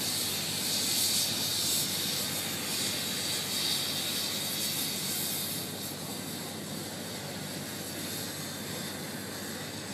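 River steamboat letting off steam, a steady hiss that surges a few times in the first half and eases to a lower, even level about six seconds in.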